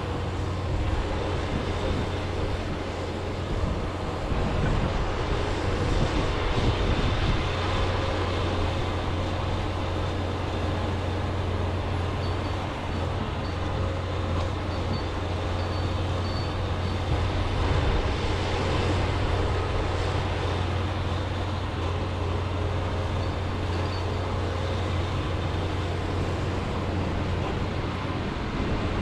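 John Deere 210G excavator's diesel engine running steadily under working load, swelling slightly a few times.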